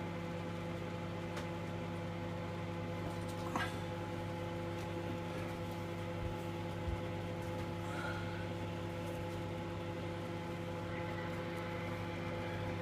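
Tesco own-brand 650–700 W microwave oven running on high: a steady low hum, with a few faint ticks.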